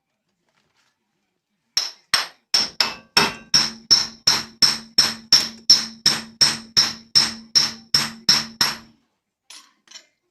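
A hammer striking a nut threaded onto the end of a car's drive axle, about twenty blows at roughly three a second, each with a short metallic ring. This drives the axle shaft into a new CV joint until the joint's retaining clip catches.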